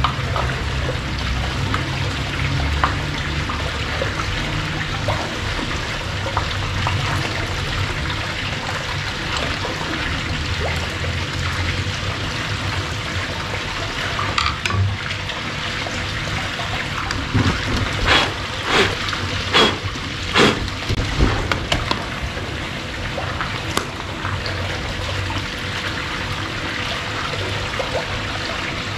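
Small garden waterfall splashing steadily into a pond. Through the middle stretch come a series of sharp clicks and knocks from the plastic housing of an aquarium air pump being handled and taken apart.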